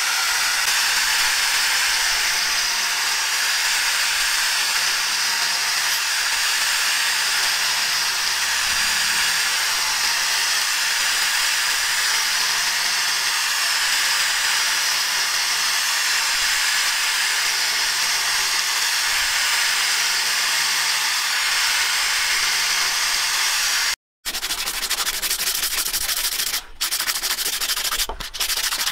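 Angle grinder with an abrasive disc running against the metal ferrule of a knife handle, a steady high hiss. After a brief break about 24 seconds in, a cloth rubbing over the handle.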